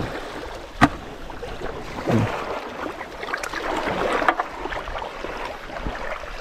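Shallow sea water lapping around a wooden outrigger boat while a nylon fishing net is handled, with two sharp knocks, one about a second in and one a little past four seconds.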